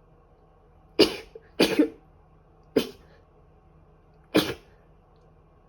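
A person with a cold coughing: four short, sharp coughs over about three and a half seconds, the second one a quick double.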